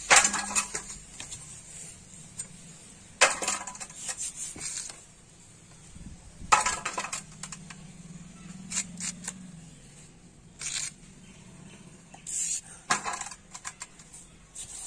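Raw green mango being sliced on a boti, a fixed curved kitchen blade, with the slices dropped into a metal bowl: irregular sharp clinks and knocks a second or a few seconds apart.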